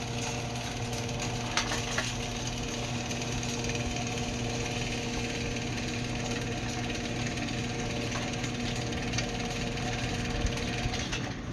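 CO-Z automatic sliding gate opener's electric motor and gearbox running steadily, a smooth mechanical hum with a light whir and a few faint clicks as it drives the chain-link gate back along its chain. The motor cuts off near the end.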